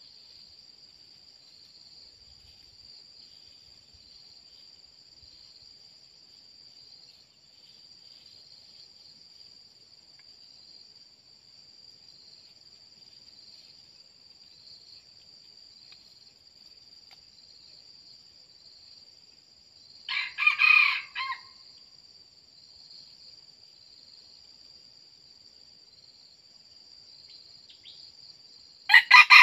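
Red junglefowl rooster crowing: a short clipped crow about two-thirds through and another at the very end. Throughout, a steady high-pitched drone of insects runs in the forest.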